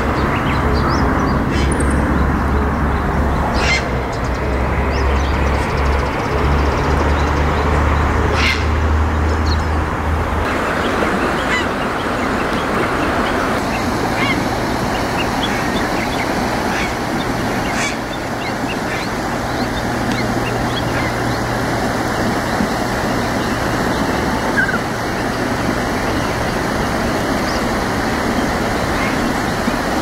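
Grey heron giving harsh, croaking "gyaa" calls over a steady background rumble and hiss.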